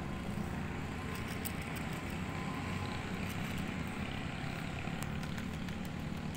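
Steady low rumble of distant city traffic, with faint light clicks now and then.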